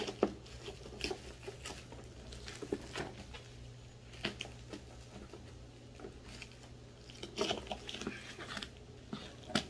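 Hands opening and handling the cardboard box and packaging of an RC helicopter: scattered taps, scrapes and crinkly rustles, busiest near the end, over a steady low hum.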